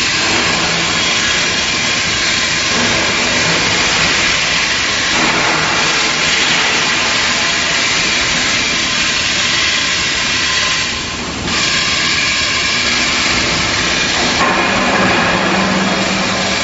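Loud, steady hiss like escaping compressed air over a machinery hum in a steel pipe mill. The hiss breaks off briefly about eleven seconds in, and a low hum grows stronger near the end.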